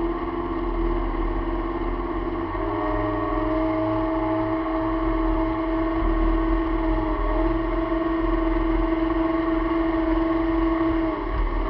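1997 Sea-Doo GTX personal watercraft's two-stroke engine running at speed, about 35 mph, with a steady whine. The engine note climbs about two and a half seconds in, holds, and drops back near the end. A low rumble runs underneath.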